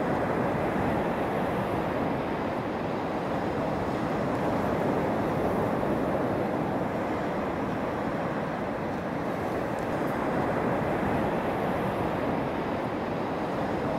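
Steady rush of North Sea surf washing up a flat sandy beach, with wind, swelling and easing gently every few seconds.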